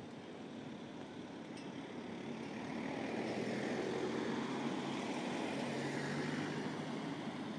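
A motor vehicle driving past: its noise swells about two seconds in, is loudest in the middle with a low hum, and fades near the end.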